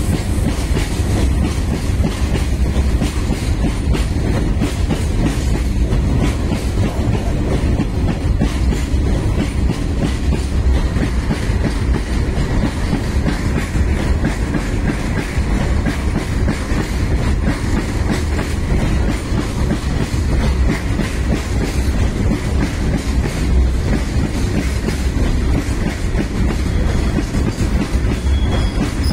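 Loaded goods train's open-top wagons rolling past close alongside: a steady loud rumble, with the wheels clicking over the rail joints in a continuous clickety-clack.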